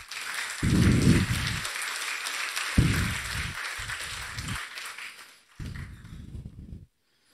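Audience applauding in a lecture hall, dying away after about five seconds, with a few low rumbles underneath.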